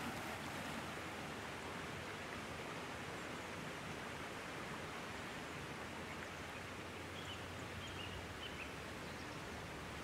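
Steady rushing of a forest stream, with a few faint high chirps about three-quarters of the way through.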